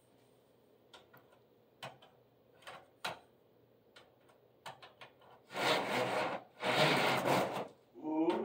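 A few sharp clicks as a pole's hook knocks and catches on a skylight blind's handle bar, then two long scraping rasps as the pleated blind is pushed along its side rails.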